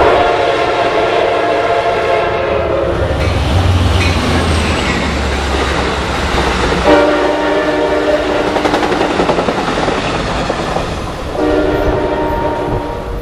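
Train horn sounding a chord in three blasts: a long one at the start, another about seven seconds in and a shorter one near the end. Between the first two blasts a passenger train rumbles past.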